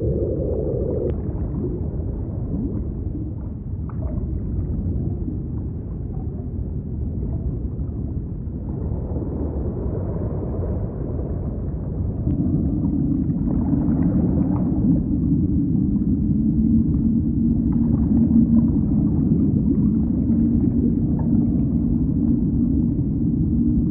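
Underwater ocean soundscape: a dense low rumble, joined about halfway through by a steady low drone that makes it a little louder.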